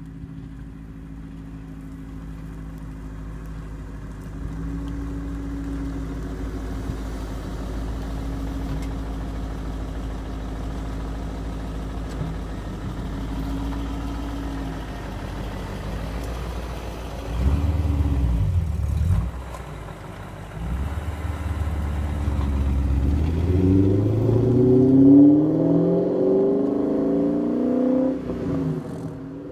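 A 2000 BMW E39 M5's 4.9-litre S62 V8, running with its mufflers deleted, idles steadily with a brief rise in revs a little past halfway. Then it pulls away and accelerates, its note climbing in pitch and peaking in loudness near the end.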